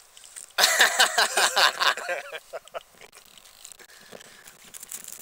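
Fishing reel's drag clicking rapidly as a hooked fish pulls line off the spool. The clicking starts suddenly just over half a second in, lasts about a second and a half, then thins out and fades.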